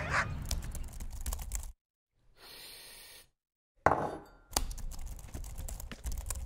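Quick, irregular key clicks of typing on a laptop keyboard, starting after a sharp knock about four seconds in. Before that comes a low background with scattered clicks, then a short gap of near silence.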